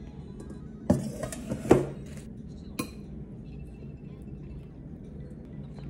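Tableware and lettuce being handled at a meal: a few sharp clinks and knocks with leaf rustling in the first three seconds, the loudest just under two seconds in, over faint background music.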